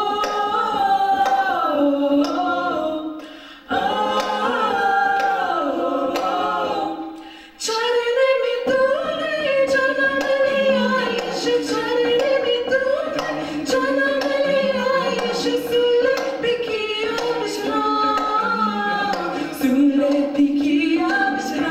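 A cappella group of mixed young voices singing in close harmony with no instruments, with hand claps keeping time. Two brief breaks between phrases come about four and seven and a half seconds in.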